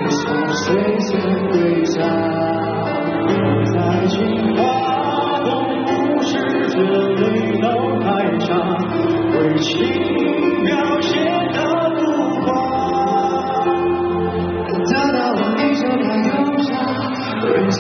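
Live pop song: a male vocalist sings a melody over a full band, picked up by an audience member's phone in a concert arena.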